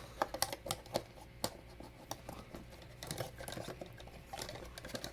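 Plastic Lego pieces clicking and rattling as they are handled and snapped together, a string of sharp irregular clicks.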